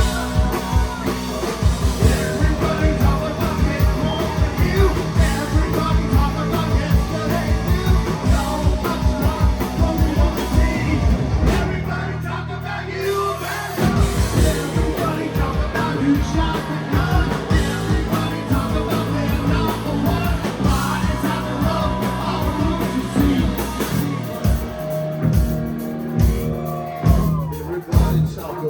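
Live rock band playing with a male lead singer: drums, electric guitar and bass. About twelve seconds in the drums stop for roughly two seconds over a held low note, then the full band comes back in.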